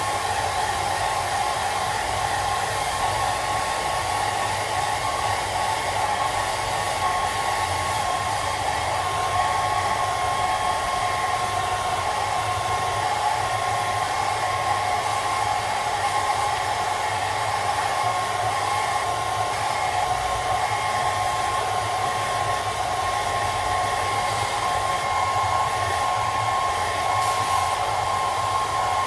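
Handheld hairdryer running steadily, a continuous rush of air with a constant whine, blowing on a cat's fur.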